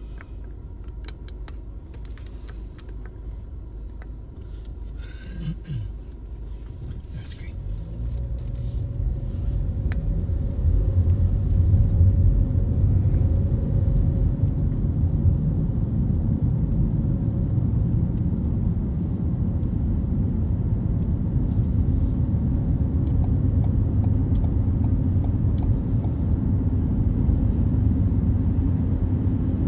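Low, steady vehicle rumble that swells over a few seconds about eight seconds in and then holds loud and even, with a few faint clicks before it builds.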